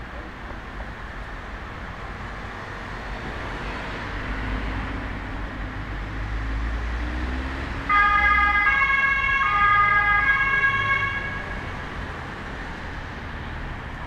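Emergency vehicle's two-tone siren (German Martinshorn) blares suddenly about eight seconds in, alternating between two pitches for about three and a half seconds, over the rumble of passing vehicles.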